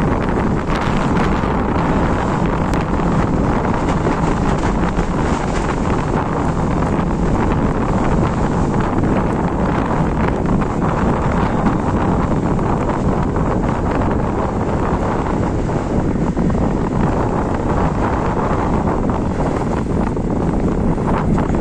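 Fire whirl over a burning scrubland hillside: a loud, unbroken rush of wind buffeting the microphone as the spinning column of smoke and ash sweeps over the ground.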